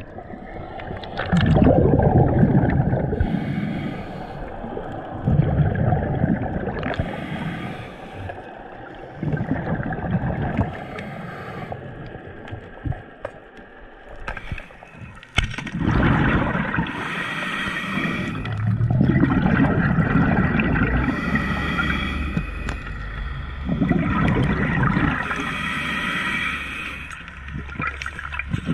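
A scuba diver breathing through a regulator underwater: gurgling bursts of exhaled bubbles alternate every few seconds with the hiss of each inhalation, muffled through the camera's waterproof housing.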